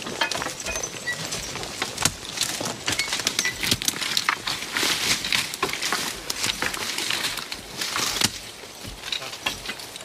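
Team of Belgian draft horses skidding a log through brush: many sharp clicks and cracks of harness and chains clinking and twigs and branches snapping under hooves and the dragged log.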